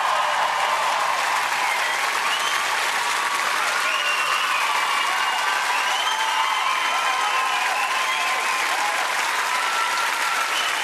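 A large audience applauding and cheering, with steady clapping and voices calling out over it.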